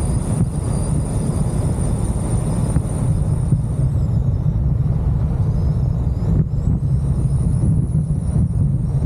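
Semi-truck's Detroit diesel engine running steadily under way, a dense constant rumble. A thin high whistle rides above it, dropping away about four seconds in and climbing back near the end.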